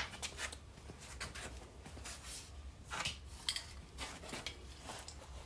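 Faint handling noises: scattered light metallic clinks and rustles of small parts and tools being picked up and moved, with a few slightly louder clicks around the middle.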